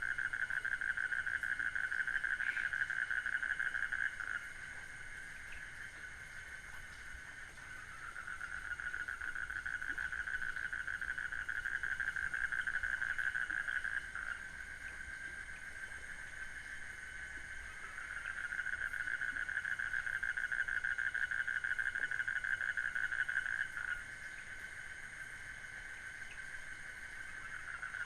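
Night-time jungle chorus: a fast, pulsing trill from calling frogs comes in long bouts of several seconds, dropping away between them for a few seconds, over a steady thin high whine of insects.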